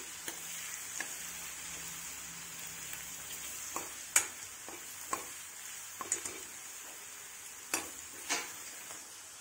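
Crushed garlic and curry leaves sizzling steadily in hot coconut oil in an aluminium kadai, the tempering for a curry. A steel spoon stirring them clinks against the pan about seven times.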